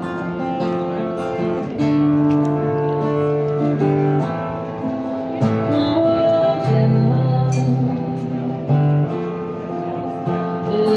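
Background music led by acoustic guitar, with held plucked and strummed notes that change about once a second. It cuts off suddenly at the end.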